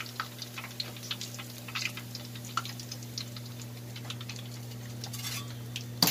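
Hot frying oil in a wok crackling with scattered small pops, over a steady low hum. A sharp click near the end.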